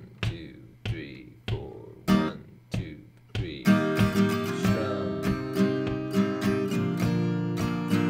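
Acoustic guitar being strummed: about six single, quieter strums roughly every half second, each left to ring and fade, then about three and a half seconds in a louder, steady strumming pattern of ringing chords.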